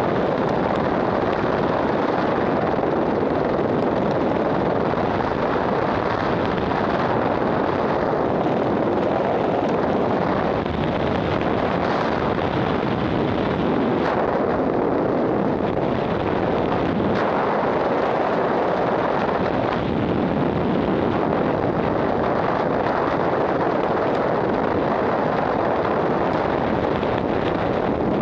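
Freefall wind rushing over a skydiver's helmet-mounted camera microphone: a loud, steady rush of air that does not let up.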